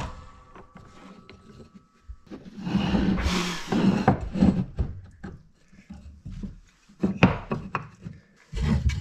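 Pieces of wood handled on a plywood workbench: slid, rubbed and set down, with a louder rush of scraping noise about three seconds in and a few sharp knocks of wood on wood near the end.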